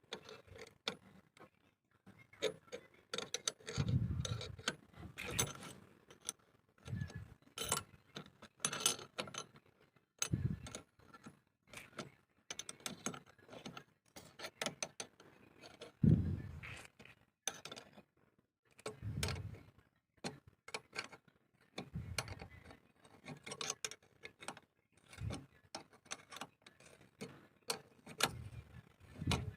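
Metal tools and parts clicking and clinking irregularly, with a few dull thumps, the loudest about halfway through.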